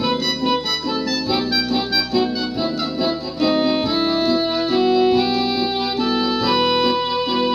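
Instrumental music on an electronic keyboard: a melody of long held notes that climbs step by step in the second half, over a repeating bass line and chords.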